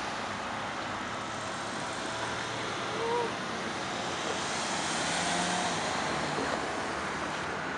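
Street traffic: cars driving through an intersection, a steady mix of engines and tyre noise that swells as a car passes about halfway through.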